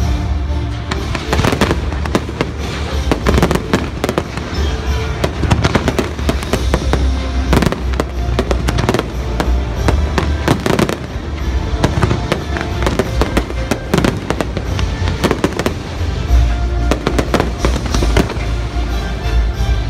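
Fireworks bursting in rapid succession overhead, a steady barrage of sharp cracks and bangs over a low rumble, mixed with the show's music soundtrack.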